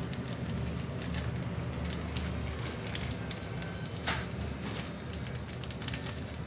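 Crinkling and small clicks of plastic food packets being handled and squeezed, scattered and irregular, with one sharper crackle about four seconds in, over a steady low hum.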